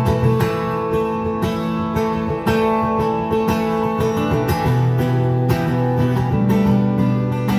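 Acoustic guitar strummed in a steady rhythm, playing an instrumental passage of a song with no singing; the chord changes about two and a half seconds in and again just before five seconds.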